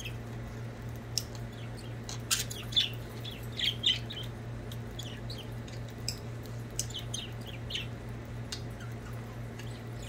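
Budgerigars chirping in short, scattered calls, busiest a couple of seconds in and again around seven seconds, with a few sharp clicks among them. A steady low hum runs underneath.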